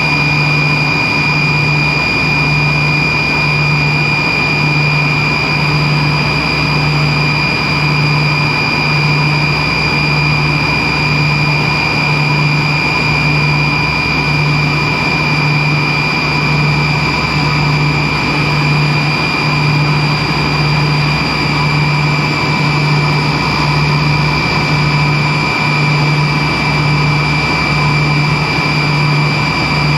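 Cabin noise of a Tupolev Tu-134B-3 in flight: the steady rush and hum of its two rear-mounted Soloviev D-30 turbofans, with a low drone that throbs about once a second under a constant high-pitched whine.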